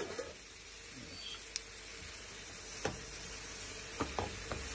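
Chopped tomatoes sizzling in a frying pan with fried onions, peppers and spices, as a spatula stirs them. A few sharp knocks of the spatula against the pan come in the last second or so.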